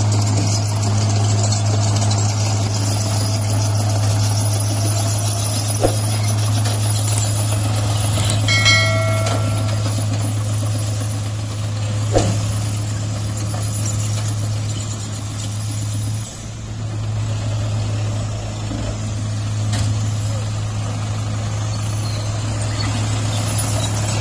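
Light dump truck's engine running steadily at a constant pitch while the truck tips its load of soil. A brief higher-pitched tone sounds about nine seconds in, and there are a couple of short knocks.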